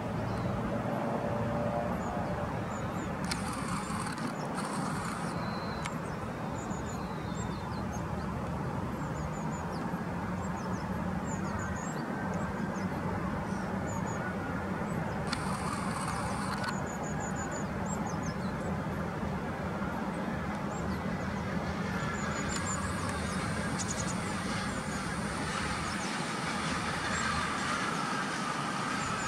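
Sendai Subway Tozai Line linear-motor train running out of the station with a steady low rumble. A motor whine comes in over the last several seconds as it passes. Small birds chirp throughout.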